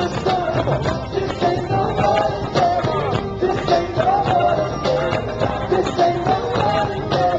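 Live pop-rock band music played loud through an arena sound system: a driving beat under a wavering melodic line.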